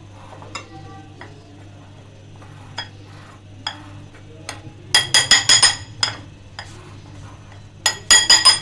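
Metal spoon clinking against a glass bowl while mixing dry flour. A few scattered light taps, then a quick run of about five ringing clinks around five seconds in and another short run near the end.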